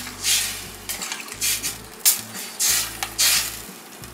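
Metal slotted spoon stirring soaked chickpeas into onion-tomato masala in a stainless steel pressure cooker pot, scraping against the steel in about six strokes, the loudest about two seconds in.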